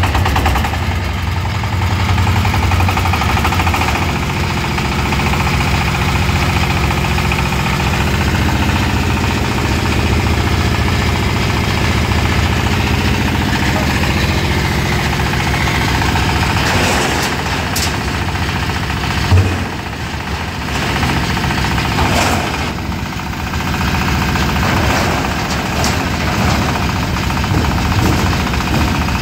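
13 hp diesel engine running steadily at a constant speed with a fast regular knock, driving a palm-fruit stripping (brondol) machine. Rattles and clatter come in over the second half, with one sharp knock a little before twenty seconds in.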